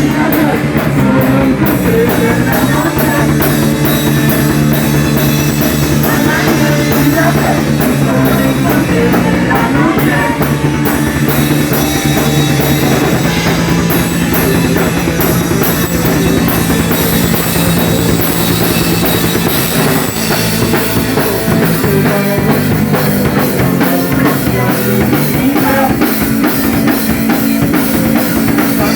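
Live rock and roll band playing, with a drum kit beating steadily under held low notes and no singing.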